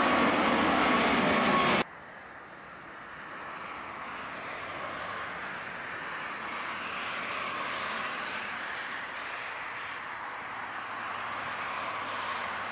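Jet airliner loud close overhead, a roar with a steady whine, cutting off suddenly about two seconds in. Then the turboprop engines of a Bombardier Dash 8 Q400 run up for its takeoff roll, quieter and building gradually.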